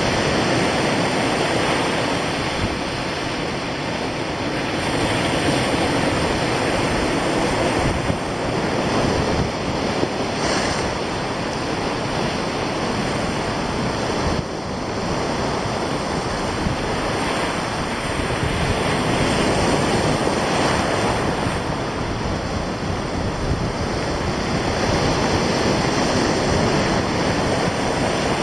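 Sea surf breaking on a pebbly beach and washing back, swelling and easing with each wave, with wind blowing on the microphone.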